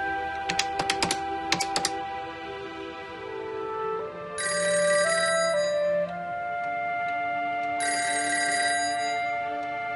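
A telephone ringing in bursts of about a second and a half, twice, roughly three and a half seconds apart, over background music. A few sharp clicks come in the first two seconds.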